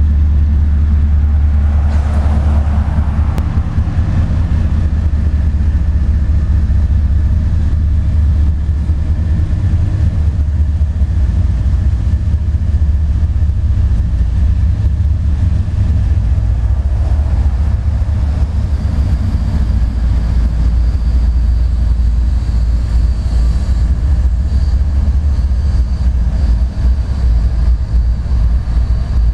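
Union Pacific diesel locomotives passing close by at the head of a freight train: a heavy, steady low rumble of engines and rolling stock. A faint high whine joins in about two-thirds of the way through.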